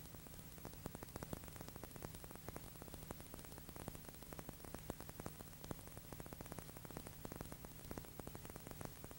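Crackling static: dense, irregular clicks over a steady low hum and hiss, the noise of an old recording transfer.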